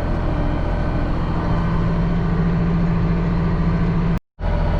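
Case IH tractor's diesel engine running steadily while pulling the planter through the field, a constant low drone with a steady hum. The sound cuts out for an instant near the end.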